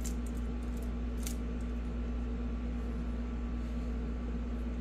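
Steady low hum of room tone, with two faint small metal ticks, one at the very start and one about a second later, as a Torx driver works the pocket-clip screws out of a folding knife.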